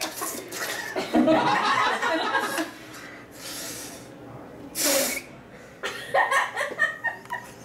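Laughter and chuckling, with a man blowing hard into a long, thin uninflated modelling balloon: a hissing puff a little past the middle and a sharper blast about five seconds in.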